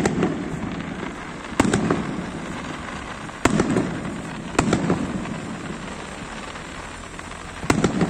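Fireworks display: aerial shells bursting with sharp bangs, each followed by a low rumbling echo. There are about five reports a second or more apart, some in quick pairs.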